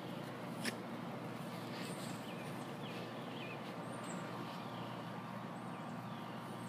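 Outdoor ambience: a steady background hum with scattered small bird chirps throughout, and one sharp click about a second in.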